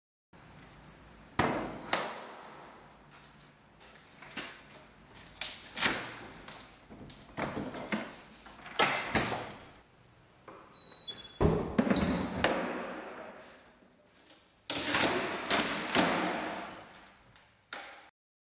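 Wooden door being wrenched by hand off its last hinge: a string of sharp knocks, thuds and creaks as the door is levered and the hinge screws pull out of the wood, with brief high squeaks about eleven seconds in.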